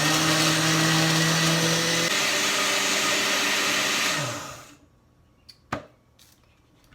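Countertop blender motor running on a smoothie setting, blending fruit, with a steady tone that drops slightly about two seconds in, then winds down with a falling pitch and stops. A single sharp click follows.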